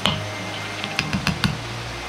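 Metal wok ladle clinking as stir-fry is served onto a ceramic plate: a sharp knock at the start, then a quick run of about four clinks about a second in.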